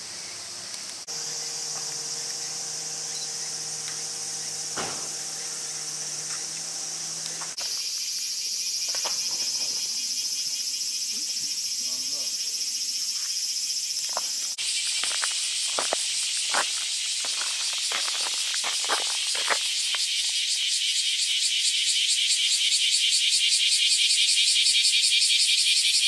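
A steady, shrill chorus of cicadas buzzing. It changes abruptly about a second, eight and fifteen seconds in, and grows louder and more pulsing toward the end.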